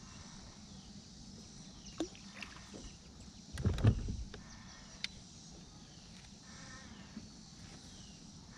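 Quiet handling sounds aboard a bass boat while jigging a spoon with a rod and reel: a few light clicks and, about three and a half seconds in, one louder dull thump.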